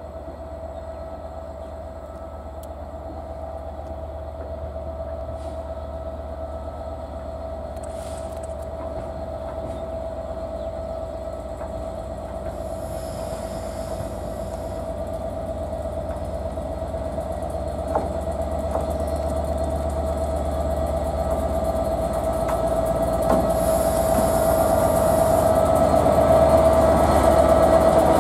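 Class 67 diesel-electric locomotive approaching and drawing past, growing steadily louder. Its engine gives a steady whine with a low hum beneath it, and a high hiss joins from about halfway through.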